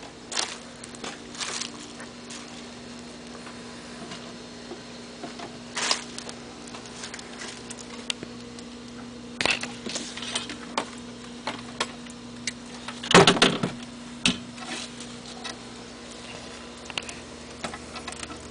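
Scattered clicks, snaps and rattles of hand wiring work, wire terminals and a crimping tool being handled, with the loudest cluster of clicks about 13 seconds in. A steady low hum runs underneath.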